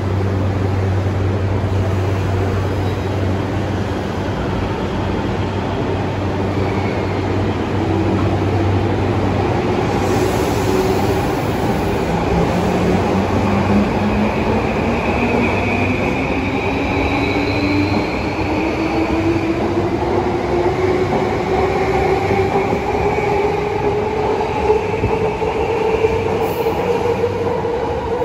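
JR East E235-series Yamanote Line electric train: a steady low hum for about the first ten seconds, then the train's motors give a whine that climbs steadily in pitch as it picks up speed past the platform. The whine sits over the rumble of its wheels on the rails.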